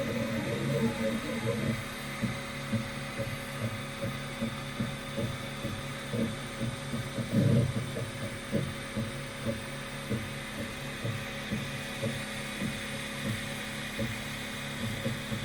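Stepper motors of a CoreXY 3D printer buzzing in quick, uneven pulses as the print head moves back and forth, over a steady high whine.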